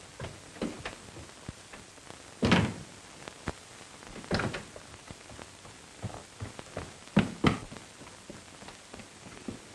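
A door shutting with a heavy thunk about two and a half seconds in, followed by further thuds and footsteps on a staircase and hall floor.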